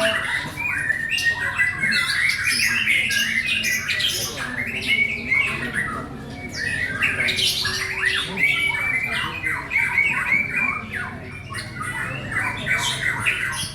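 White-rumped shama (murai batu) singing a long, unbroken song of rapid, ever-changing whistled notes mixed with harsh chattering.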